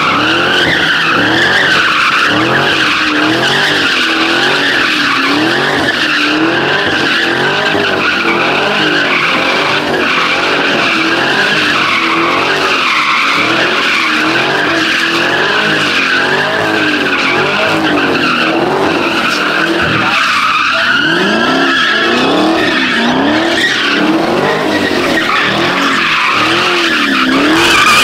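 A car spinning its tyres in a long burnout: steady tyre squeal while the engine revs rise and fall about once a second, with a brief dip around twenty seconds in.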